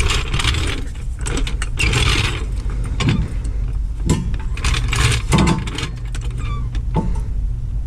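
Half-inch drive hand ratchet working a wheel hub bolt, clicking in uneven strokes with short metallic scrapes and clanks, over a steady low hum.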